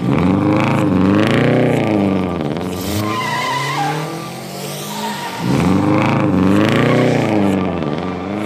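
Car engine sound effect revving up and back down twice, with a brief squeal of tyres in between.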